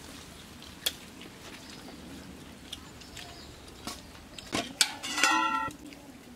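A few light clicks, then about five seconds in a metal dish is struck and rings briefly with a bright, bell-like tone: steel serving bowls clinking.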